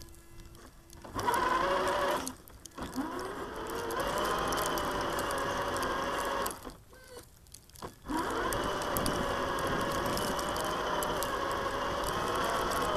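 Traxxas TRX-4 RC truck's electric motor and gearbox whining as it drives. The whine cuts out twice, and each time it comes back its pitch climbs as the truck picks up speed, then holds steady.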